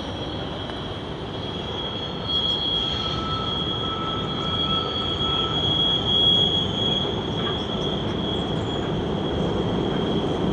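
Freight train approaching on a curve, its wheels squealing with a steady high tone that strengthens about two seconds in. Underneath is the rumble of the locomotives and wagons, which grows louder as the train draws near.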